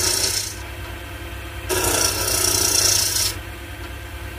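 A freshly sharpened woodturning tool cutting a spinning wooden spindle on a Draper wood lathe, a hissing shaving sound in two passes, the second starting just under two seconds in and stopping near the end, over the lathe's steady motor hum. The edge is cutting cleanly, leaving the wood smooth.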